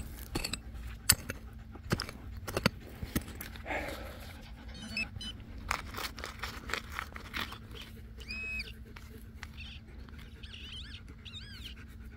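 Digging out a metal-detector target: a run of irregular scrapes and knocks of a hand tool in soil, which thin out after about seven seconds. A short pitched beep about eight seconds in and a few quick rising-and-falling chirps near the end.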